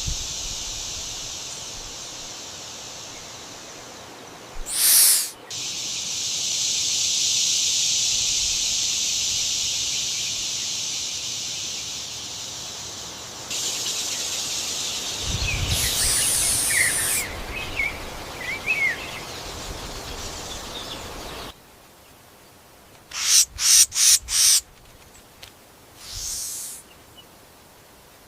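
Birds calling over a steady high-pitched buzz of outdoor ambience, with a few short chirps. About two-thirds of the way through, the ambience cuts off abruptly, and a quick run of four short harsh bursts follows, then one more a couple of seconds later.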